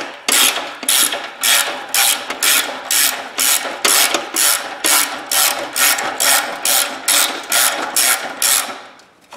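Hand ratchet wrench clicking in short runs, about two strokes a second, as it turns in a new exhaust flange stud; the clicking stops shortly before the end as the stud seats.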